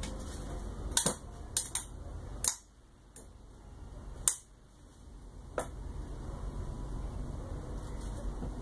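Sharp cracking clicks from the laser-cut acrylic parts as an M3 screw is tightened into a square nut, about seven separate snaps in the first six seconds, with the acrylic under stress. A low steady hum sits underneath.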